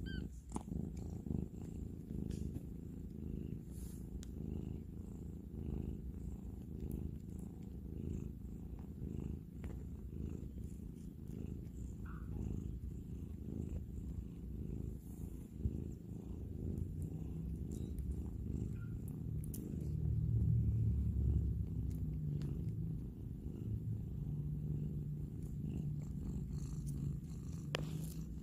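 Cat purring: a low, steady rumble that grows louder about two-thirds of the way through.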